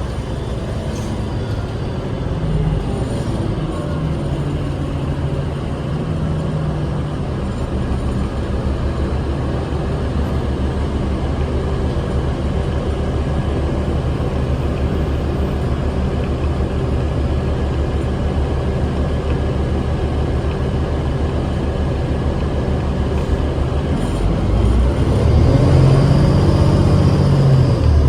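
Cabin sound of a New Flyer D40LF transit bus under way: its Cummins ISL 8.9 L six-cylinder diesel running, mixed with road noise. About 25 seconds in, the engine grows louder and its pitch shifts, and a faint high whine joins.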